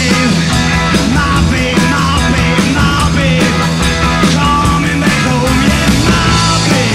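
Rock band playing a song live, full band with drums keeping a steady beat.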